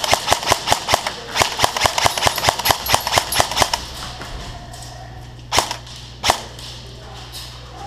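Airsoft guns firing in rapid semi-automatic shots, a quick string of sharp cracks about six a second that stops a little before halfway, followed by two single shots later on.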